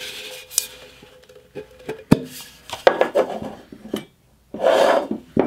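Stainless steel infuser and glass bottle handled together: light clinks and scraping of metal on glass, with a faint ringing tone for the first couple of seconds. A sharp click comes about two seconds in, and a short scrape near the end.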